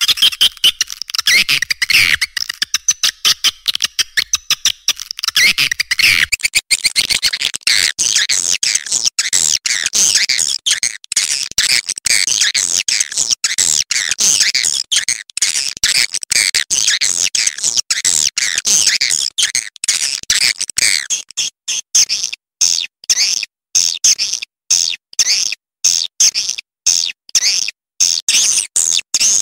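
Swiftlet call sound (suara panggil walet), a mixed lure recording of swiftlets chirping and twittering, played to draw swiftlets into a nesting house. The chirps come thick and rapid, then from about two-thirds of the way in as separate short chirps with brief gaps, about two a second.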